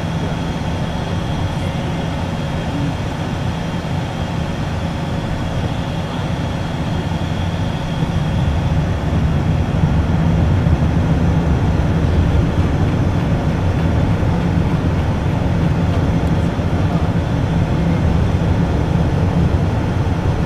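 Cockpit noise inside an Embraer Phenom 100 light jet on final approach: a steady rumble of airflow and its twin turbofan engines, getting louder about eight seconds in.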